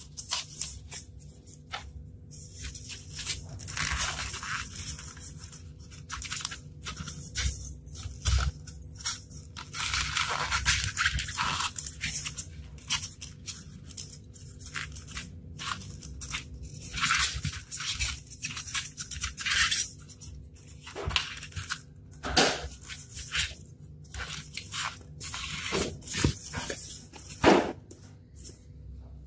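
Styrofoam rubbing and crunching under the hands in irregular bursts as a battery is pressed into a recess cut in the foam block, with a few sharp clicks near the end.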